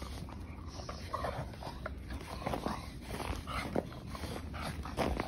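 Two pocket bully dogs playing tug-of-war over a garden hose, making short, repeated play noises as they pull. There is a sharp knock near the end.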